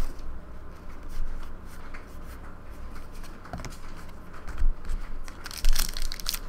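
Trading cards being handled and flipped through by hand, with soft sliding and rubbing of card stock and a few light ticks. A brief crackling comes near the end.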